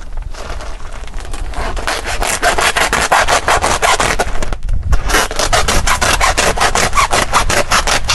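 Rapid, even rasping strokes, about six a second, that start about two seconds in and break off briefly about halfway: charcoal being worked into a lightning-arrestor earthing pit.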